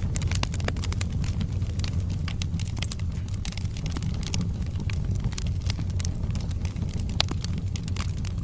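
Wood fire burning in a fireplace: many sharp, irregular crackles and pops of burning logs over a steady low rumble of the flames.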